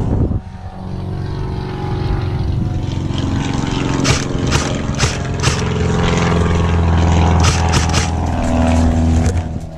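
A steady motor drone that swells and then fades near the end, with single sharp shots from an airsoft rifle, several of them about halfway through.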